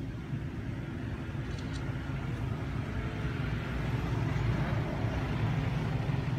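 Steady low engine drone of a motor vehicle, growing a little louder in the second half.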